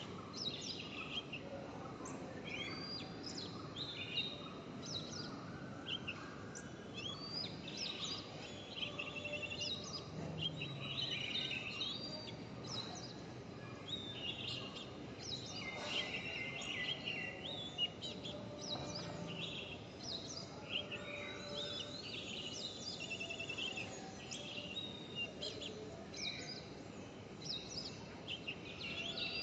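Many birds chirping and calling over steady background noise, with short rapid chattering runs of calls scattered throughout.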